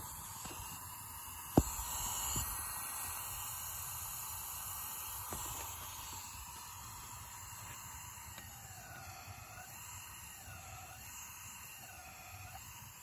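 Compressed air hissing steadily out of the open intake ports of a Volvo T5 five-cylinder's head during a leak-down test: air leaking past the valves, the sign of valve train trouble. A single sharp click about a second and a half in.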